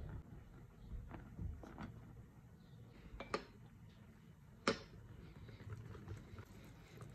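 Quiet low rumble with scattered light clicks and two sharper taps, about three and four and a half seconds in.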